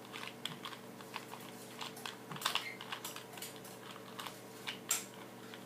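A 2x2 Rubik's cube being scrambled by hand: quick, irregular plastic clicks, a few each second, as its layers are twisted.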